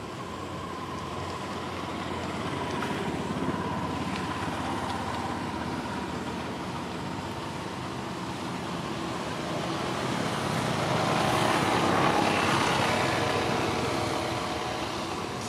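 Road traffic noise from passing motor vehicles: a steady rumbling noise with a faint engine whine, swelling as one vehicle passes about three seconds in and again as a louder one passes later.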